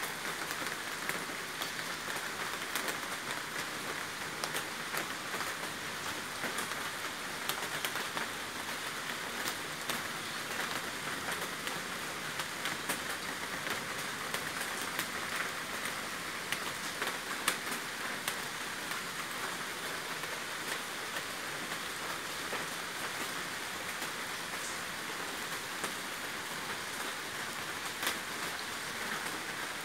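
Steady monsoon rain: an even hiss dotted with the scattered ticks of individual drops.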